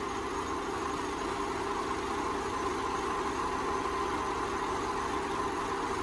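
Subaru EJ25 2.5-litre non-turbo flat-four engine idling steadily, fully warmed up, the state in which its piston slap usually quietens.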